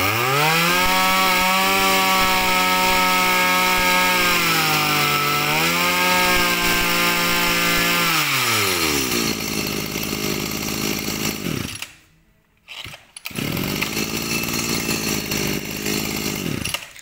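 Makita M227 23cc two-stroke brush cutter engine run for testing. It is revved to full throttle and held, with a brief dip in revs midway, then the throttle is released about eight seconds in and it drops back to idle. The sound breaks off for about a second near the twelve-second mark, then idling resumes.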